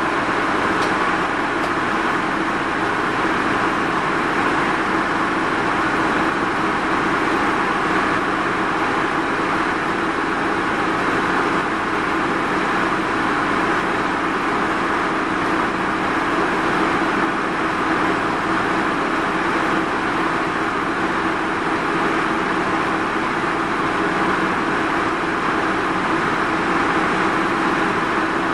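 Steady engine and running noise of a Mitsubishi Fuso Rosa minibus, heard from inside the passenger cabin.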